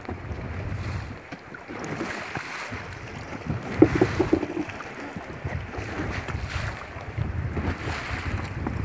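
Wind buffeting the microphone over the wash of choppy sea against a small wooden sailing raft, with a brief sharper sound about four seconds in.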